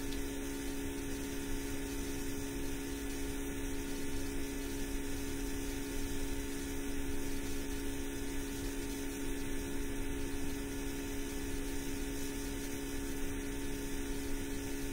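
Steady electrical hum with a few constant pitched tones over an even hiss, unchanging throughout.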